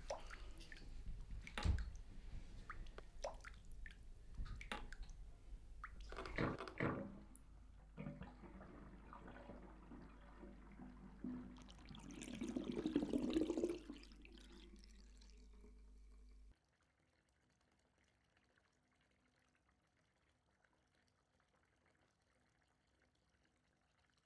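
Water splashing and dripping in a bathroom sink, with small knocks and a louder run of water about halfway through; it cuts off suddenly to near silence about two-thirds of the way through.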